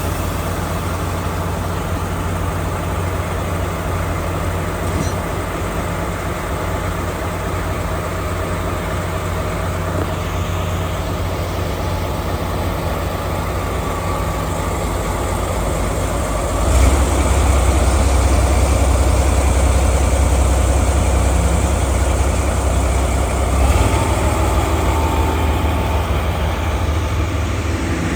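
Diesel locomotive engine idling with a steady low rumble. About 17 seconds in, it throttles up to a louder, deeper note as the train starts to pull away.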